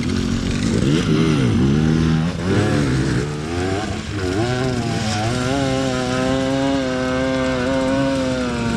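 Dirt bike engine revving, its pitch rising and falling several times, then held at high, steady revs from about halfway through, as when a bike is ridden hard up a hill.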